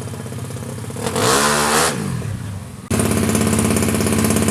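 Drag-race motorcycle engine revved, rising and falling about a second in. About three seconds in, a louder, rapid engine note starts abruptly and holds.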